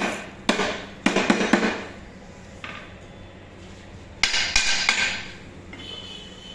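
Hand hammer striking the metal table and fence of a Kalsi wood planer. About five sharp blows come in the first two seconds, then three more a little past the middle, followed by a faint high metallic ring.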